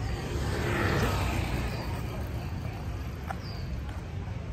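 Street sound: a low steady rumble with a vehicle passing, its noise swelling and fading about a second in, while a small bird gives short falling chirps every second or so.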